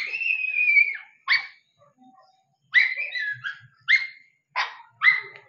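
A dog whining: one long, high, slightly falling whine, then a string of short high yelps and whimpers.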